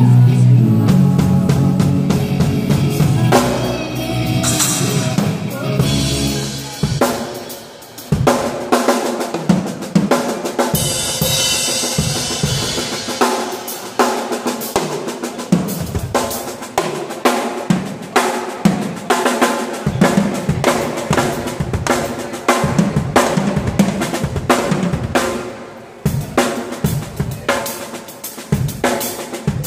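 Acoustic drum kit played live. For the first seven seconds or so it plays over backing music with sustained low notes; then the music stops and the drums carry on alone in a solo of rapid snare and bass drum hits with cymbals, broken by a brief pause near the end.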